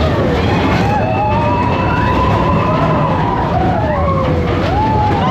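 Roller-coaster mine train running along its track with a steady rumble, its wheels squealing on the curves in long wavering tones that slide up and down in pitch.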